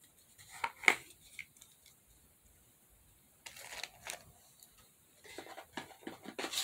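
Small clicks, taps and light rustling of plastic nail-product containers and cellophane packaging being handled and set down. The clicks come in a cluster about a second in and again about three and a half seconds in, with rustling near the end.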